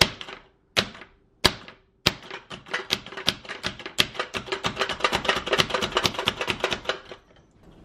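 Plunger-style hand food chopper being pumped on a cutting board to chop apple: three separate clacks, then from about two seconds in a fast run of clacks, several a second, that stops just before the end.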